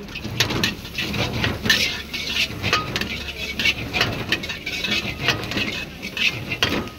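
Metal spatula scraping and clanging against a black iron wok as fried paneer cubes, onion and capsicum are tossed and stir-fried, a fast irregular clatter of strikes.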